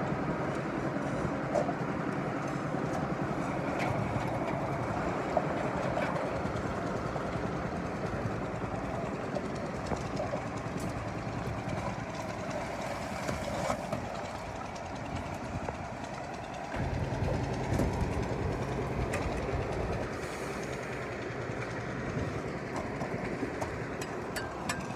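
Concrete mixer and bucket-hoist machinery running steadily. A deeper low rumble joins about two-thirds of the way through.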